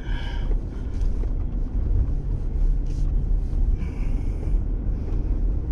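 Jeep driving slowly through soft river-bed sand, a steady low engine and drivetrain rumble heard from inside the closed cab.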